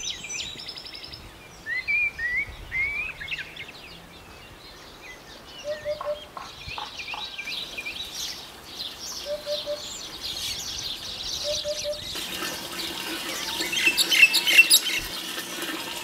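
A hoopoe calling its soft three-note "oop-oop-oop", three times, amid short chirps of other birds; the chirping grows busier about three-quarters of the way through.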